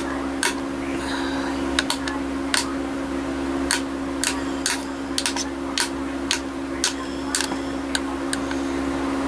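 A tissue blade chopping a log of polymer clay, its edge clicking sharply against the hard work surface one or two times a second at an uneven pace, over a steady low background hum.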